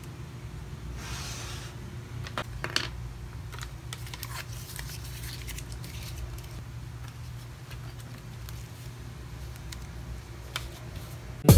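Light desk handling sounds: scattered clicks and taps around a laptop and keyboard, and soft rustling of paper cards, over a steady low room hum. Music comes in right at the end.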